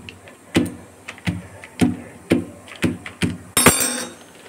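A perforated steel masher pressed down again and again onto a dough ball under a plastic packet on the counter, giving about six knocks roughly half a second apart. Near the end the plastic packet crinkles as it is peeled back.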